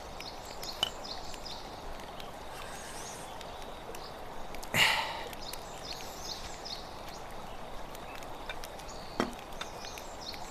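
Outdoor ambience of small birds chirping over a steady background hiss. A couple of light clicks are heard, and a short, louder noisy burst comes about halfway through.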